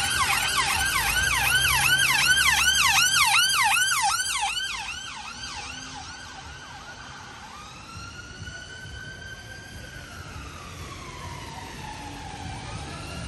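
UK ambulance siren sounding a fast yelp, about three rising sweeps a second, loud at first and fading away after about five seconds. It then switches to a fainter, slow wail that rises, falls and rises again.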